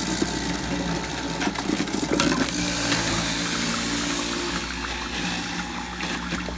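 Electric centrifugal juicer running with a steady motor hum, grinding carrots pushed down the feed chute by the plunger. The grinding is rougher in the first few seconds, then evens out as the motor keeps spinning.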